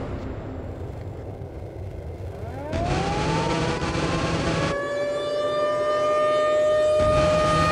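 A siren-like wail in a film soundtrack. About two and a half seconds in it winds up, rising in pitch, then holds a steady high tone over low noise.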